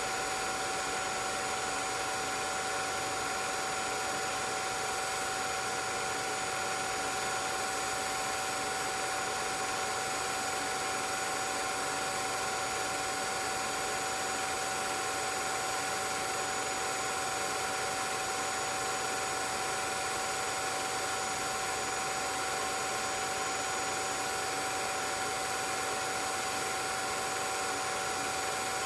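16mm film projector running: a steady mechanical whir and hiss with a constant high hum, unchanging throughout.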